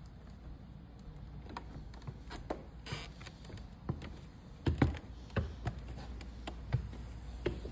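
Footsteps climbing steps onto a stage and walking across the stage floor: irregular taps and knocks, with a couple of louder thumps just before five seconds in, over a low steady hum.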